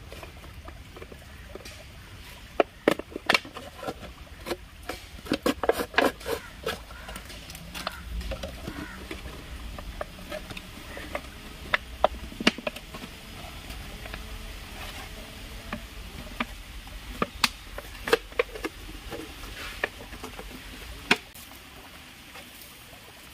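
Thin plastic bottle crackling and crinkling as it is cut with a knife and then pressed and fitted together by hand: a run of sharp, irregular clicks, busiest in the first several seconds and sparser later.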